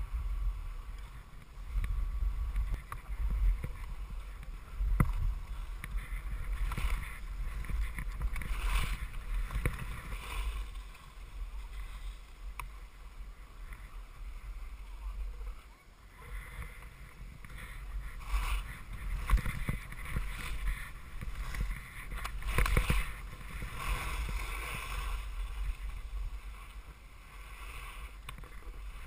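Skis hissing and scraping over packed, chopped snow, swelling and fading with each turn, over a steady wind rumble on the microphone.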